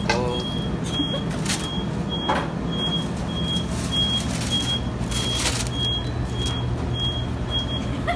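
Restaurant fryer timer beeping, short high beeps about twice a second, signalling that the fries are done. Underneath is a steady low kitchen hum, with a few knocks of containers being handled.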